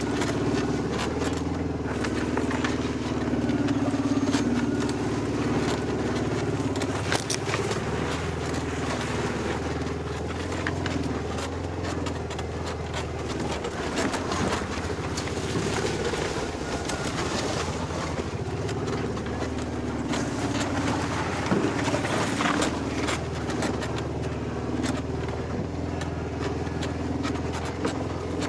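An engine running steadily, its pitch holding and then shifting in small steps, with a few light knocks over it.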